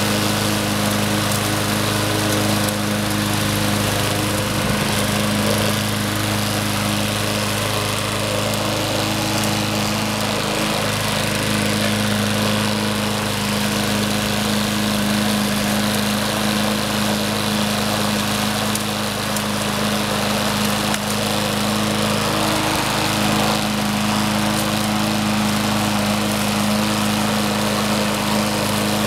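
Troy-Bilt walk-behind gas lawn mower running steadily while cutting and mulching grass, a constant engine drone with a steady low hum.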